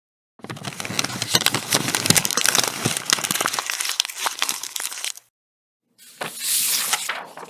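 A dense crinkling crackle full of sharp clicks for about five seconds, then, after a short gap, a briefer hissing noise that swells and fades.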